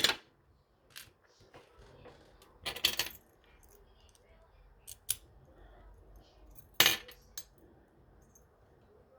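Small metal clicks and clinks from an American Lock 1100 padlock and small tools being handled during disassembly: a sharp click at the start, a short clatter about three seconds in, and single clicks scattered through the rest.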